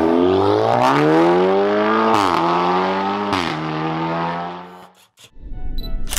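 Straight-piped tuned Audi TTS with a 2.0-litre turbocharged four-cylinder accelerating hard away, revs climbing with two quick upshifts about two and three and a half seconds in, then fading out near five seconds. Near the end a music intro sting with a low rumble starts.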